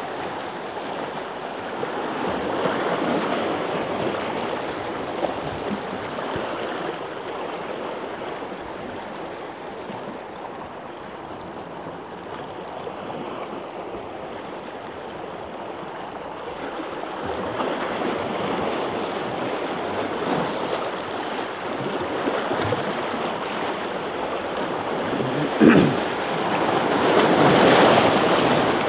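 Small sea waves washing and splashing against shoreline rocks, swelling and fading in slow surges. There is one short knock near the end.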